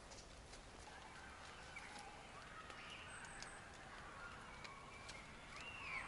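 Faint woodland ambience: scattered bird calls gliding up and down, with light footsteps clicking on a leaf-covered trail.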